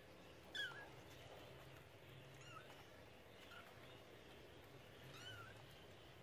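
Five-week-old Persian kittens mewing: four short, high mews, the first and loudest about half a second in.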